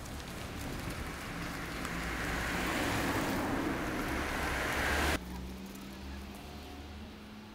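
A car driving past on an asphalt road, its engine and tyre noise swelling over a few seconds and then cutting off suddenly about five seconds in. A faint steady hum follows.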